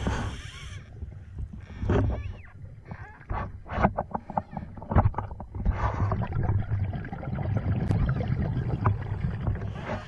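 Scuba diver breathing through a regulator underwater. A short hiss of inhalation comes first, then the exhaled bubbles gurgle and crackle for several seconds over a low rumble.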